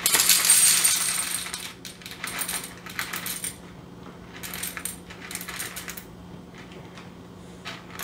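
Whole coffee beans poured from a paper bag into a small stainless-steel dosing cup, rattling against the metal, while weighing out a 19-gram dose. A long pour comes first, then two shorter trickles of beans shaken in, with the paper bag crinkling; a steady low hum runs underneath.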